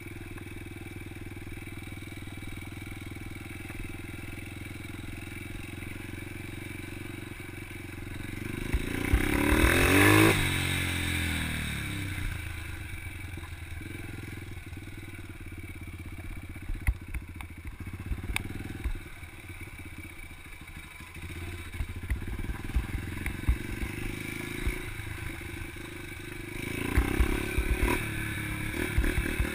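Yamaha TT-R125 dirt bike's small single-cylinder four-stroke engine running at low speed. It revs up and back down about ten seconds in and swells again near the end, with scattered knocks and rattles.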